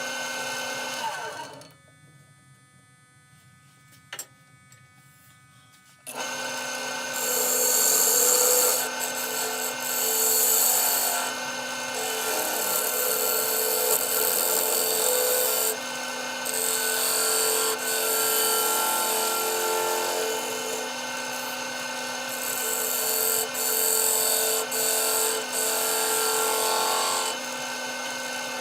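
Wood lathe motor running with a steady hum, stopping after about a second and a half with a single click in the pause, then starting again about six seconds in. A tool works the spinning walnut blank in uneven strokes, a loud scraping hiss that comes and goes until the lathe winds down near the end.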